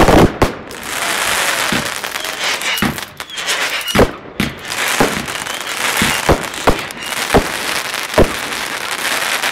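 Consumer fireworks bursting overhead: a loud bang at the start, then a steady crackling hiss broken by single sharp bangs about once a second.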